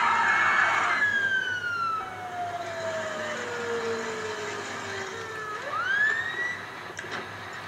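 Messed-up electronic police siren: a loud hissy wail in the first second, then tones sliding slowly downward for several seconds, one quick rising swoop about six seconds in, and two sharp clicks near the end.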